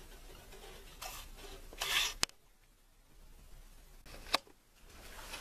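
Rustling and handling noise, swelling twice in the first two seconds, with two sharp clicks, one just after two seconds and one a little past four seconds.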